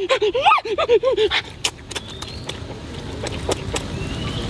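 A man eating shrimp noisily: short hummed 'mm' sounds in the first second or so, then a run of sharp wet smacking and chewing clicks.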